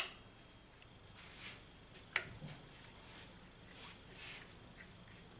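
Two sharp clicks, one right at the start and another about two seconds in, with faint rustling between: hand tools and small bolts being handled on a scooter engine's crankcase cover.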